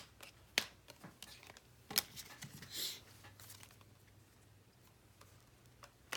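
Baseball cards being handled on a table: a few faint sharp clicks and taps, with a brief rustle about three seconds in.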